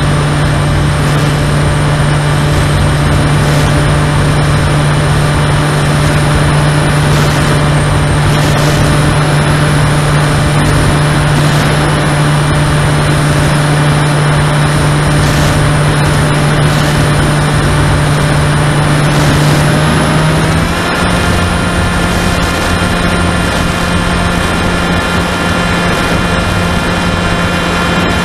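Electric motor and propeller of a Finwing Sabre RC plane, heard from its onboard camera in flight: a steady low hum with a thin high whine over it and a constant rush of noise. About twenty seconds in, the hum steps up slightly in pitch and then holds steady again.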